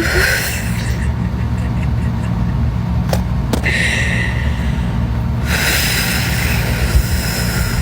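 A woman's hiccups: a short catch right at the start and two sharp clicks about three seconds in, with breathy hiss. Under them runs a steady low rumble.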